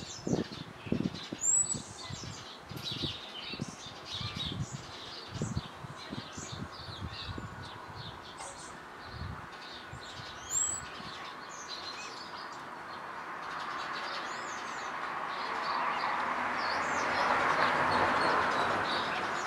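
Common blackbird pecking at a walnut shell: a quick, irregular run of sharp knocks, thickest in the first half. Other small birds chirp throughout, and the noise of a passing vehicle swells up over the last few seconds.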